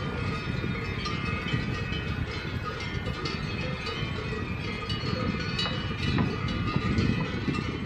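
Steady low rumble from the moving fixed-grip chairlift and wind, with a continuous jangle of cowbells ringing over it.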